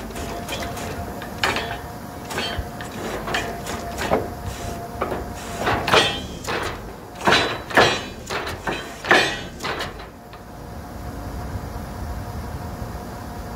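Truck-mounted borewell drilling rig running steadily while drilling, with a string of irregular loud knocks and bangs from the drilling for the first ten seconds or so, the loudest a few seconds before they stop, then steady running.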